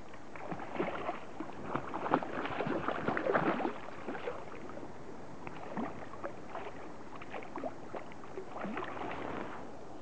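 Hooked trout thrashing and splashing at the water's surface while being played on a fly rod, in irregular bursts, busiest in the first few seconds and again near the end.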